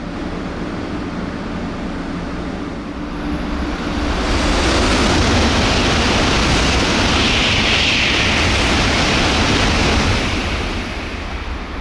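Shinkansen bullet train passing straight through the station at high speed without stopping. A rush of air and running noise builds over about a second, stays loud for about six seconds as the train goes by, then dies away.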